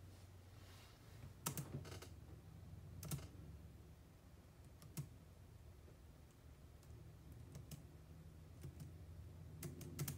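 Quiet room tone with a steady low hum and a handful of scattered light clicks, the clearest about one and a half, two and three seconds in.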